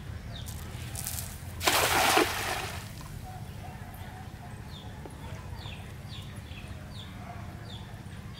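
Hand-thrown cast net hitting the pond surface about two seconds in: a brief, loud splash that dies away within a second.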